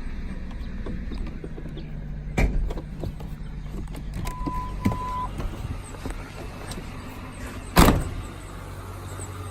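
2002 Ford Mustang GT's 4.6-litre V8 running steadily, with the knocking and ticking noise the owner is seeking help with. Two loud thumps come about two and a half seconds in and near the end, and a short beep about four seconds in.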